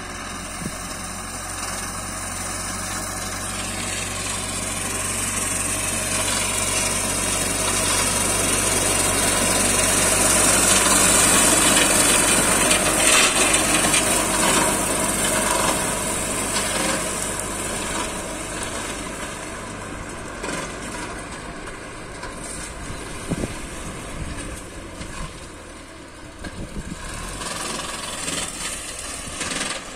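Türk Fiat 70-56 tractor's diesel engine running under load while its PTO-driven rotary mower spins, cutting dry wheat stalks, with a high whirring hiss over the engine. It draws closer, is loudest about halfway through, then fades as it moves away, with a few sharp ticks near the end.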